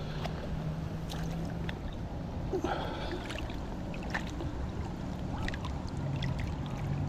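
Water sloshing and splashing at the water's edge as a hand-held largemouth bass is eased back into the lake and released, with scattered small splashes and knocks.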